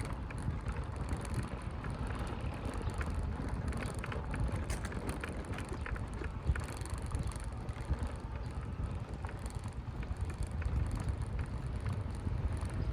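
Steady rush of water with scattered small ticks through it, over a low rumble of wind on the microphone.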